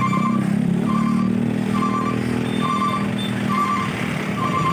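Truck engine running with a low rumble while a reversing alarm beeps steadily, a short warbling beep about once a second.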